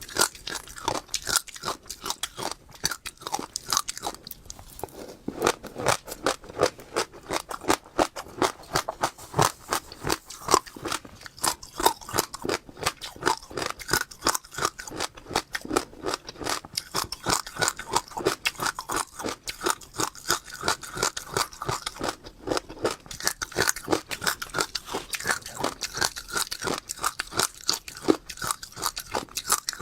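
Passion fruit seeds crunched between the teeth while chewing: a rapid, unbroken run of crisp crunches, many a second.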